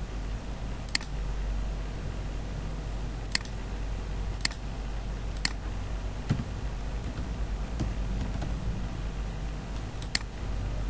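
Five sharp, separate clicks, typical of a computer mouse or keys while a wiring diagram is pulled up on screen, over a steady low background hum.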